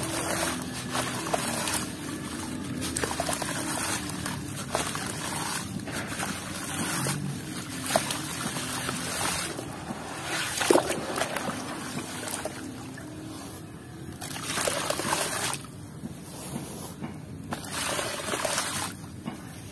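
Hands crumbling gritty, dusty blocks into a tub of muddy water and squishing the wet mush, with sloshing, trickling and splashing in repeated swells. A couple of sharp cracks come near the middle.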